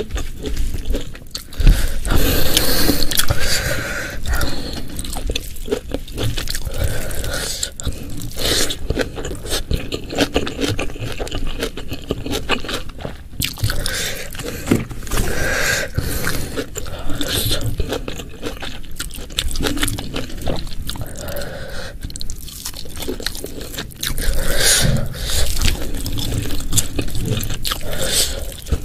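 Close-miked eating sounds: wet chewing and crunching of a meal of Bali-spiced beef, yellow pickles, fried petai beans and rice, with many small clicks and scrapes. The crunching is loudest a couple of seconds in and again near the end.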